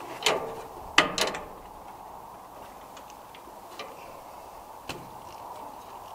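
Hand tools knocking and clicking against metal parts: three sharp knocks within the first second and a half, then a few lighter ticks.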